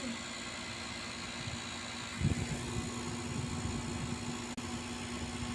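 A steady low machine hum, with a steady tone setting in about two seconds in.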